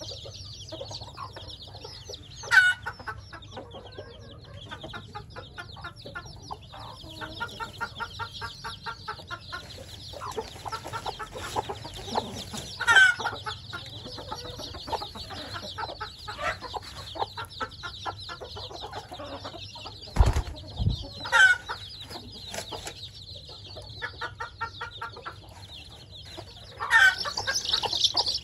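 A brood of week-old chicks peeping continuously in a dense, high chorus, with single louder, falling peeps standing out now and then. Two dull low thumps come close together about two-thirds of the way through.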